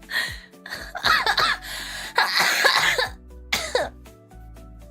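A young woman coughing hard in a run of four harsh bursts, some with a voiced rasp, over steady background music.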